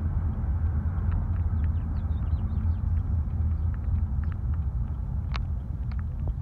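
Steady low rumble of a car's engine and tyres heard from inside the cabin while driving, with an occasional faint click.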